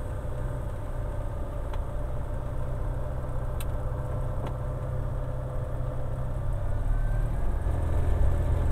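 Light aircraft's engine running steadily at low power, heard from inside the cockpit as a low drone during the landing rollout on the runway. The drone grows louder near the end.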